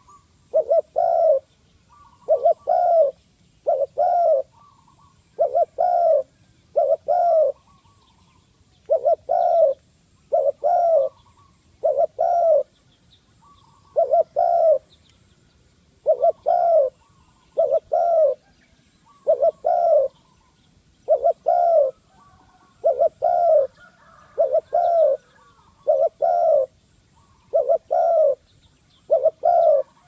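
Spotted dove cooing: short, low coos repeated over and over, roughly every one to two seconds.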